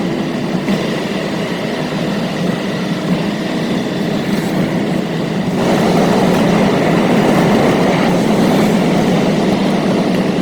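Steady travelling noise of a moving vehicle, with a faint falling tone near the start, that steps up noticeably louder about five and a half seconds in.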